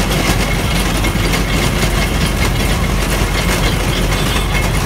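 Steady, loud engine-like running noise with a low rumble and a continuous fine rattle.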